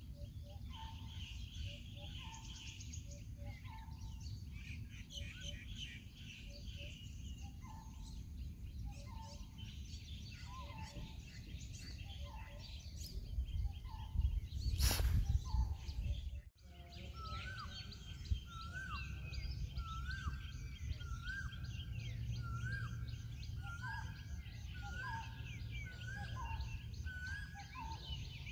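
Birds calling over a steady outdoor background: a short note repeated about once a second with higher chirps around it, and in the second half a rising call repeated about once a second. About halfway there is a loud rush of noise lasting a couple of seconds, then the sound drops out for a moment.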